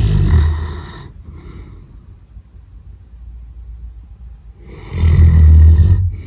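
Labrador snoring in its sleep: a loud, deep snore fading out in the first second, then another loud snore about five seconds in, with quieter breathing between.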